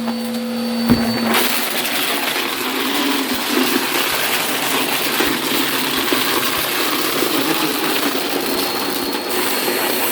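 Vacuum cleaner running. About a second in, its steady motor hum gives way to a louder, rougher rushing with many small crackles, typical of crunchy debris being sucked up.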